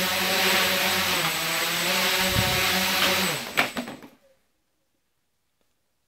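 Quadcopter's electric motors and propellers running steadily in a tethered hover, then cut; the rotors spin down with a falling whine and a sharp knock as the craft sets down, about three and a half seconds in.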